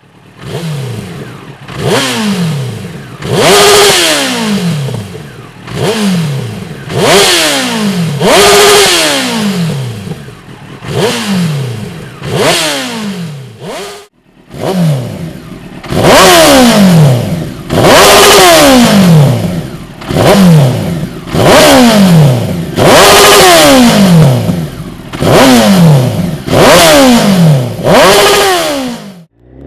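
Honda CBR954RR Fireblade's inline-four through a Dominator aftermarket exhaust silencer, revved hard again and again every second or two, each rev falling back in pitch. There is a brief break about halfway through.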